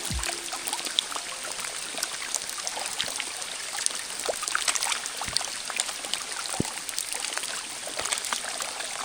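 Creek water running steadily, with scattered small drip and splash ticks through it.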